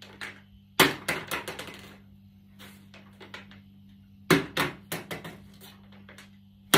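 A plastic bottle partly filled with dry macaroni is flipped and lands on a wooden table twice, about a second in and again about four seconds in. Each landing is a sharp knock followed by a quick run of smaller bounces and rattles that fade away: the loose pasta shifting inside makes the bottle bounce rather than settle.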